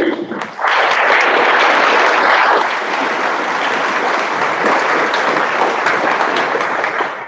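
Audience applauding loudly. It breaks out about half a second in and fades near the end.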